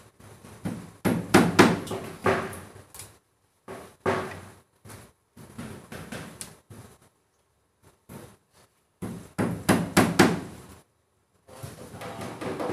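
Irregular knocking and clattering against plywood practice wall panels, coming in short clusters with pauses between.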